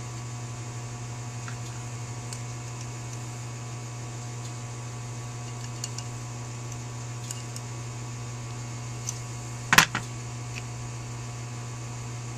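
Steady low electrical hum under faint small clicks of metal carburetor parts being handled. A brief, sharp clatter of metal comes about ten seconds in.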